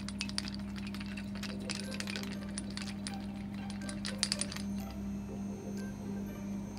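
Clear-resin 3D-printed part rattling and clinking against the walls of a jar of acetone as the jar is shaken to wash it: rapid, irregular clicks that stop about four and a half seconds in, over a steady low hum.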